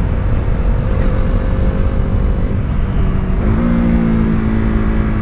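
KTM 390 Duke's single-cylinder engine running at road speed while the bike is ridden. Its note sags slightly, then climbs about three and a half seconds in as the revs rise.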